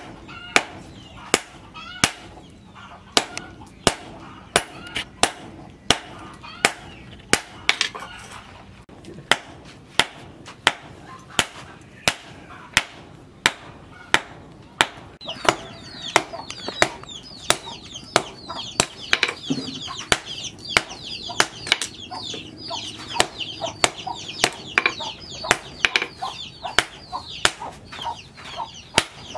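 Hand hammer blows on a red-hot steel cleaver blank lying on an anvil, about one and a half strikes a second, in a steady forging rhythm. Chickens cluck in the background, more busily from about halfway through.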